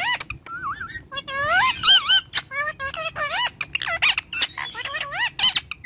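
Parrot chattering in a rapid string of squeaky, warbling calls that swoop up and down in pitch.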